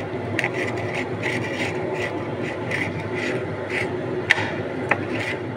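Rhythmic rasping or scraping, about four strokes a second, over a steady low hum, with two sharp clicks after the middle.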